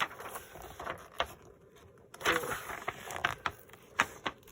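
Paper being handled on a work table: sheets and book pages rustling and sliding, with several sharp clicks and taps, one about a second in and a few near the end.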